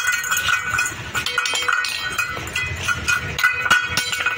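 Steel dog bowl knocking and clattering on a concrete floor several times at irregular moments, over a steady high-pitched tone in the background.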